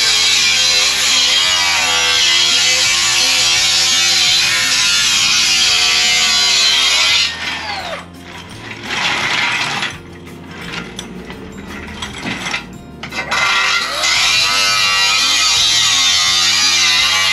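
Background music with a stepping bass line and guitar. It thins out and drops in level for several seconds in the middle before coming back in full.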